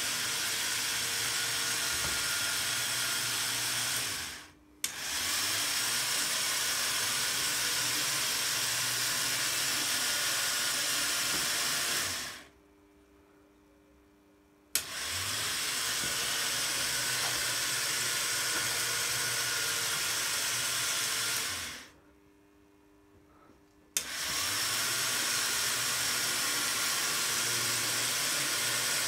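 Electric motor of a home-built Meccano model diesel locomotive whirring steadily through its drive. It is switched off three times, running down over about half a second each time, and comes back on suddenly with a click.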